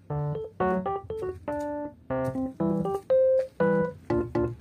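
Background music: a light keyboard melody of short, separate notes, about two or three a second, over a lower bass line.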